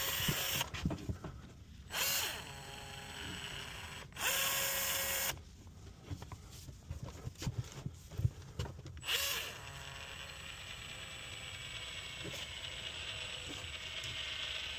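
Battery-powered caulking gun pushing out Prosoco R-Guard Joint & Seam Filler, its motor running in four short bursts with clicks and knocks between, then a fainter, steadier sound near the end.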